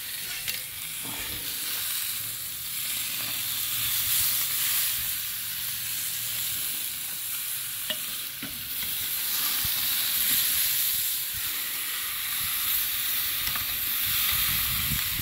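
Marinated skirt steak sizzling steadily on GrillGrates over a hot Weber kettle. A couple of light clicks sound over the sizzle, the clearest about eight seconds in.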